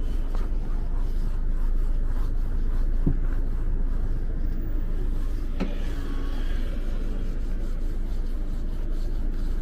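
Steady low rumble with two short knocks, one about three seconds in and one near the middle.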